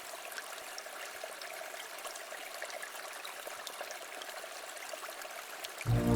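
Quiet river flowing, an even rush of water with small trickling ticks and splashes. Just before the end, deep ambient electronic music comes in loudly over it with sustained low tones.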